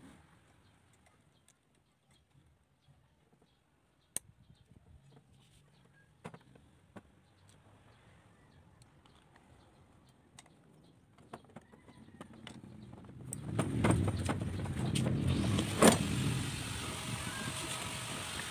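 Faint clicks and taps of metal parts as a starter motor's brush holder and housing are handled and fitted together. About two-thirds of the way through, the steady noise of a motor vehicle running close by rises and stays loud, with one sharp click in it.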